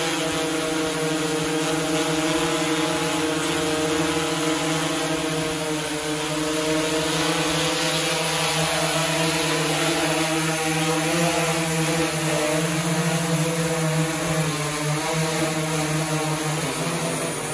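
DJI S800 EVO hexacopter's six electric motors and propellers running in flight, a steady pitched hum over propeller hiss, shifting slightly in pitch as it manoeuvres.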